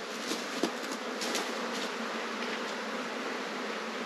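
Steady insect buzzing in the bush, with a few faint rustles and steps through dry scrub in the first second and a half.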